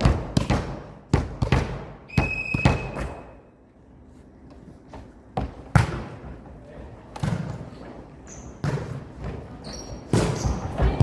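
Volleyball play on an indoor court: a series of sharp ball strikes and thuds. About two seconds in there is a steady high tone lasting about a second.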